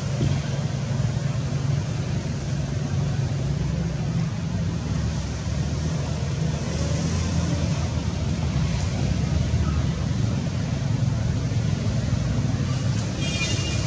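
Steady low drone of a running motor under a constant hiss, with a brief high-pitched call near the end.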